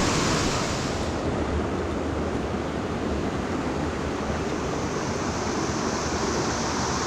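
Mountain stream rushing: a steady wash of running water, its high hiss easing a little about a second in.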